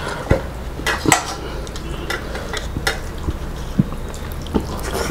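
Rice being mixed by hand on a steel plate, with a handful of scattered metal clinks against the steel dishes.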